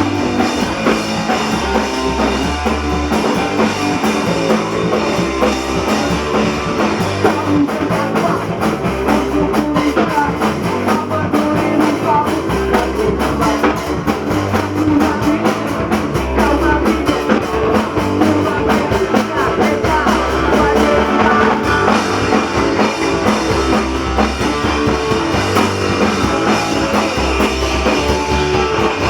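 Punk rock band playing: distorted electric guitar, bass and a drum kit beating fast and steadily, loud and without a break.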